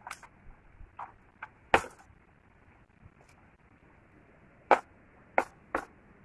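Scattered sharp clicks and knocks from rope being wound and pulled tight around a bamboo pole, about seven in all, the loudest a little under two seconds in, with a quiet stretch in the middle before three more near the end.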